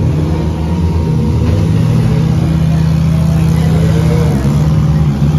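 Four-cylinder demolition derby cars' engines running together, with revving that rises in pitch a few times, most clearly about three and a half seconds in.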